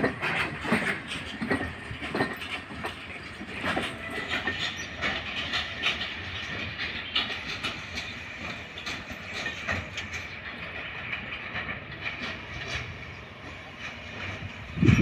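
Wheels of a freight train's last wagons and brake van clattering over the rail joints as they pass and roll away, the clicks thinning out and growing fainter.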